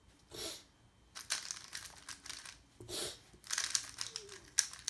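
Plastic 3x3 puzzle cube being turned by hand: its layers click and rattle in quick runs. There is a short whoosh about half a second in and another near three seconds.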